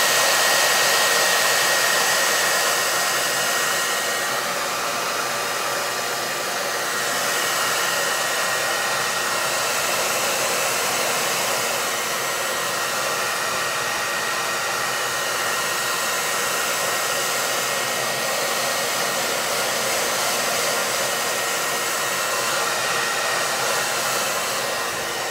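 Handheld blow dryer running steadily on heat, a continuous rush of air with a thin high whine over it that is clearest in the first few seconds. It is blowing hot air onto wax paper wrapped round a wax-coated candle to melt a tissue-paper photo into the wax.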